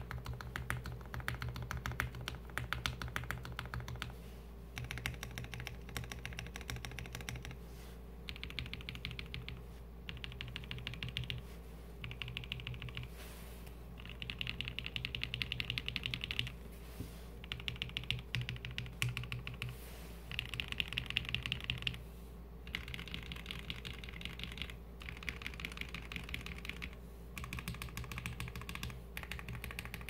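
Gerald65 custom mechanical keyboard with an acrylic case and plate and lubed linear switches (Tecsee Blue Velvet on the alphas, Gateron Red Ink V2 on the modifiers), with the board sitting on a bare desk. Its modifier and alpha keys are pressed in quick runs of clacking keystrokes, each one to two seconds long, with short pauses between runs.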